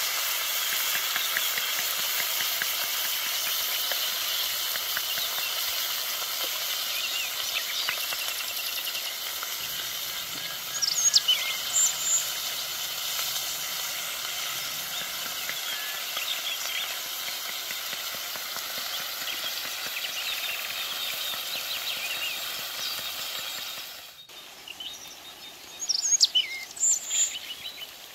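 Fish and vegetables frying in oil in a wide black iron pan over a wood fire: a steady sizzle, which drops much quieter about three-quarters of the way through. Birds chirp briefly in the middle and again near the end.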